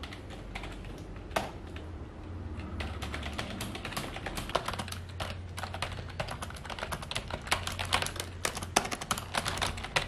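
Typing on a Corsair K55 RGB membrane keyboard: a rapid run of soft key presses, getting busier after a few seconds. Being a membrane keyboard, it lacks the loud clack of mechanical switches.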